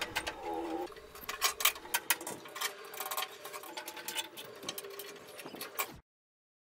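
Steel bar clamps being fitted and screwed tight on a glued-up wooden strip: irregular clicks and metallic clatter of the clamp bars, jaws and screws, with a brief squeak near the start. The sound cuts off suddenly about six seconds in.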